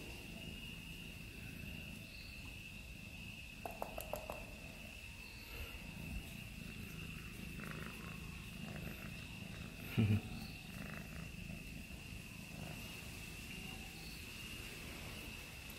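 Cat purring loudly and steadily while being stroked under the chin and along the back. A brief thump about ten seconds in is the loudest sound.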